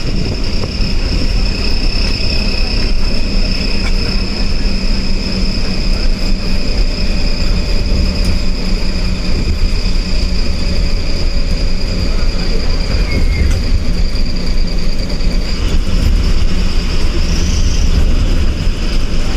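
Eicher bus engine and tyre noise at cruising speed, heard from inside the driver's cabin: a loud, steady low rumble with a thin high whine over it.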